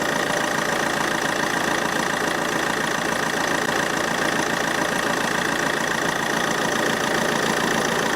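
Car engine idling steadily with the air conditioning running at full cold and full fan, while refrigerant is charged into the system.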